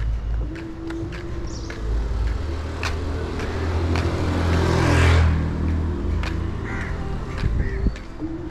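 A motor vehicle passes close by on a narrow street, its engine and tyre noise building to a peak about halfway through and then fading.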